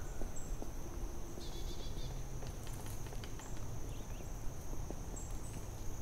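Forest ambience dominated by a steady, high, unbroken insect drone. Under it runs a low rumble, with scattered soft clicks and a few brief high chirps.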